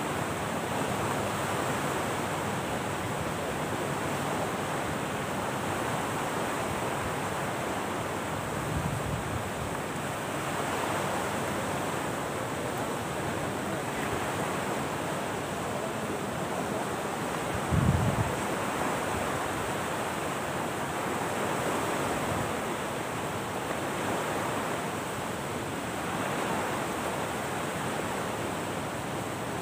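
Steady wash of sea surf on a beach mixed with wind, swelling and easing every few seconds. There is one brief low thump a little past the middle.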